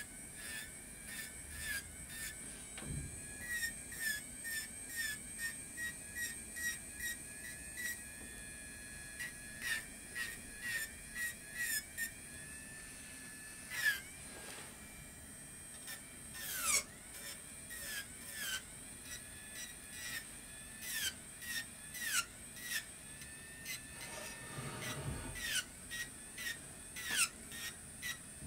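Electric nail drill whining at high speed while grinding gel polish off a nail, its pitch dipping briefly with each of many short strokes as the bit bites.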